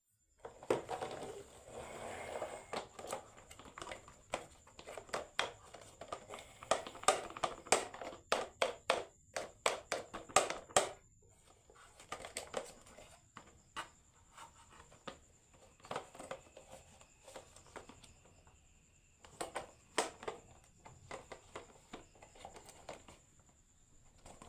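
Marbles clattering and clicking down a wooden HABA marble run: a dense string of rapid clicks and knocks for about the first eleven seconds, then scattered clicks.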